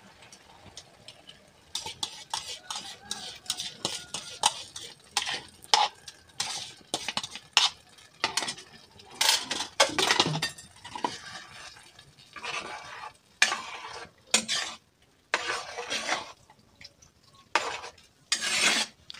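A spoon scraping and clinking against a pot in quick, irregular strokes, stirring egg into cooked izote flowers. The stirring starts about two seconds in.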